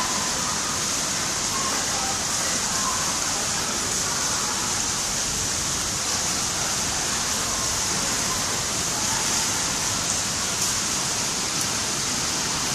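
Torrential cloudburst rain pouring down steadily, a dense even hiss with no let-up.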